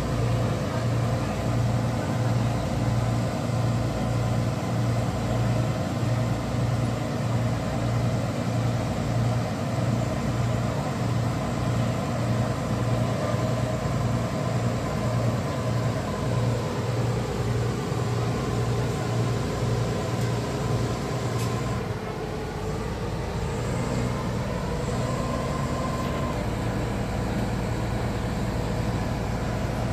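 Ferry boat's engine running, a steady low drone with an even throb about once a second. About two-thirds of the way through the throbbing stops and the sound drops a little.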